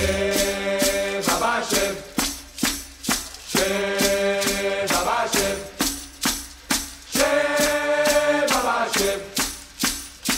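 Background music: a steady percussive beat under long held notes, in phrases that repeat every few seconds.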